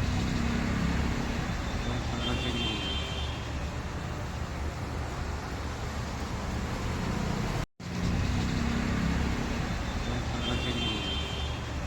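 Steady low mechanical rumble with a brief high whine about two seconds in. The sound cuts out for a moment near eight seconds and the same stretch starts again, with the whine returning near the end.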